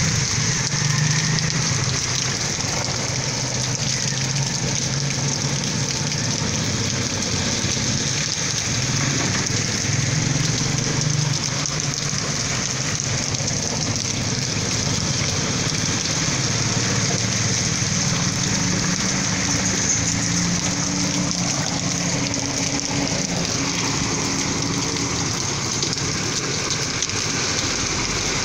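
Heavy rain falling steadily on the pavement and the flooded street, a dense even hiss. A vehicle engine hums underneath it at times.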